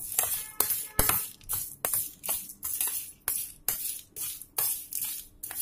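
Spoon stirring dry-roasted mango-seed slices around a stainless steel plate to mix in spice powders: repeated scraping, rattling strokes, about two to three a second.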